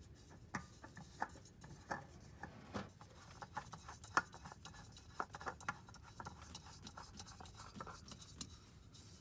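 Faint light clicks and rubbing as a new Purolator One oil filter is spun by hand onto its threaded mount, the ticks coming irregularly and thinning out near the end.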